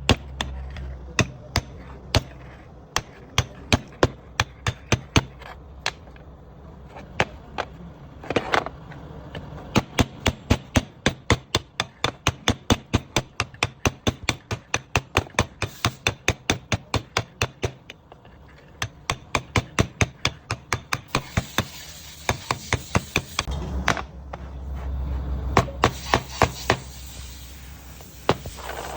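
Hammer striking in a long run of quick, steady blows, about three to four a second, pausing briefly twice. In the second half a low hum comes and goes under the blows.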